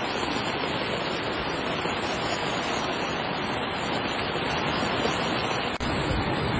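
Steady rush of fast-flowing muddy floodwater, with a momentary break about six seconds in.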